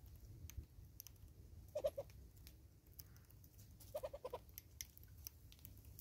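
Two short bursts of low clucking calls, a few quick notes about two seconds in and a longer run of four or five about four seconds in, over faint scattered clicks.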